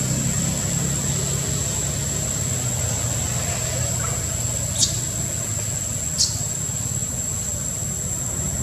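Steady low hum of a running engine, with a constant thin high-pitched whine over it and two short, sharp high chirps about five and six seconds in.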